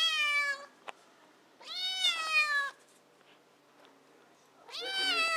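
Kitten meowing three times, long high cries that each slide down in pitch, typical of a hungry kitten begging for food.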